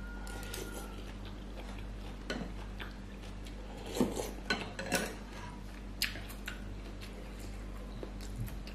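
Metal spoon and fork clinking and scraping against a ceramic soup bowl during eating, about half a dozen sharp clinks from about two seconds in, over a steady low hum.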